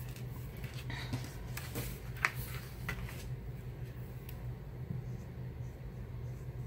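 Mechanical pencil strokes on paper and the sheet being slid and turned on the table: light rustles and clicks, with a sharp tap about two seconds in, over a steady low hum.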